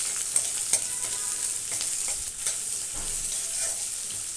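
Onion and green chillies sizzling in hot mustard oil in a kadai, stirred with a spatula that clicks and scrapes against the pan now and then.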